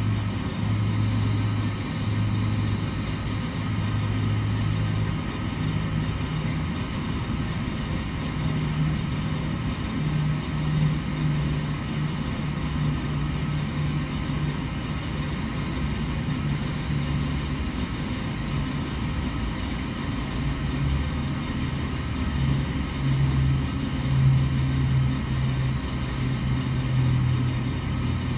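A steady low machine hum whose pitch steps up and down between two levels several times.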